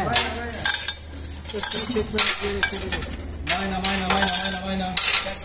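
Repeated metal clinks and scrapes as a ship's main-engine cylinder cover is lowered on a chain hoist onto its seat, over a steady low machinery hum.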